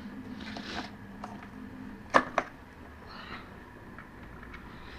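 Two sharp clicks about a quarter second apart, a little over two seconds in, from tools being handled at the motorcycle's front axle, with a few fainter ticks and soft breathy noise around them.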